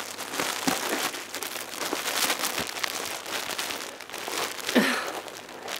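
Plastic wrapping on bundles of yarn balls crinkling and rustling as an armful of them is carried and shifted, with many irregular crackles.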